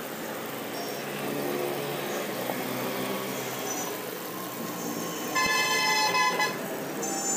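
Momos deep-frying in hot oil give a steady sizzle under street traffic noise. About five seconds in, a vehicle horn honks once for about a second, the loudest sound in the stretch.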